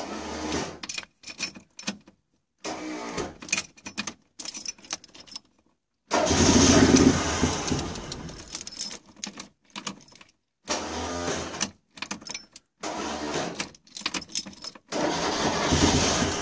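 Nearly worn-out starter motor cranking the Citroën 2CV air-cooled flat-twin engine in repeated bursts with short breaks, the loudest burst about six seconds in. The owner takes the struggling start for a starter that needs replacing, with low battery power partly to blame.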